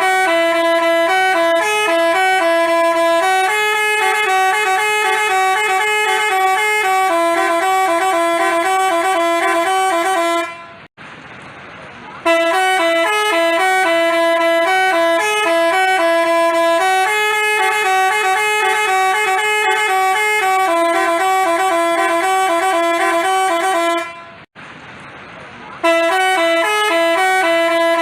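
Basuri-type telolet bus horn playing a melody of quick stepped notes. It plays in long phrases, broken by short pauses about 11 and 25 seconds in.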